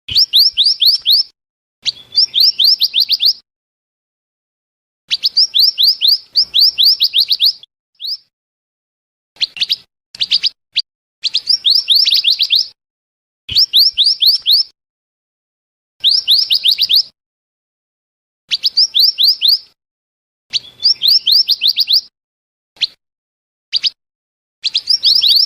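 Lure recording of the small songbird known in Indonesia as mantenan or merapi api calling: bursts of rapid, high, downward-sweeping chirps lasting a second or two, repeated after short pauses, with a few single short notes in between.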